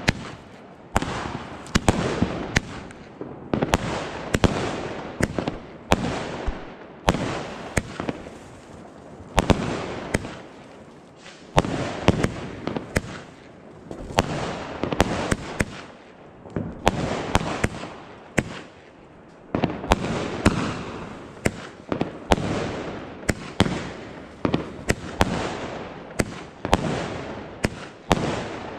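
Fireworks and firecrackers going off: a long run of sharp bangs and crackles, often several a second, over swelling bursts of hiss.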